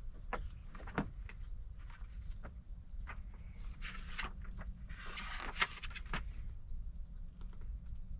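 A few light clicks and a brief rustle about four seconds in, over a steady low rumble.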